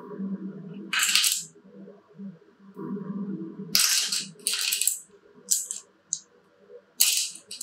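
Small flat wooden discs clattering against one another and onto a hard tabletop as a handful is dropped and spread out, in several short bursts of clicks. The loudest bursts come about a second in, around four seconds in and near the end.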